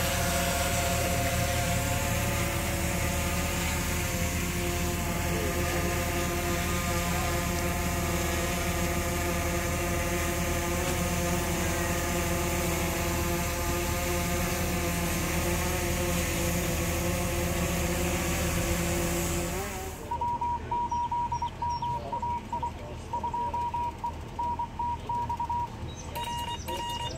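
Quadcopter drone hovering, a steady whine of several propeller tones over a hum, which cuts off about two-thirds of the way through. Then a Morse code sidetone from a Yaesu FT-736R transceiver, a single high beep keyed by hand in dots and dashes.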